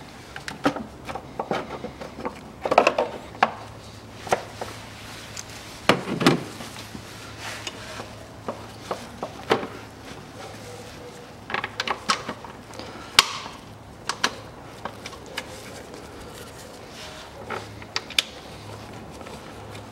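Hard plastic upper timing-belt cover being handled and pressed into place on a Kia Rio engine: irregular clicks and knocks of plastic against the engine, in small clusters with pauses between.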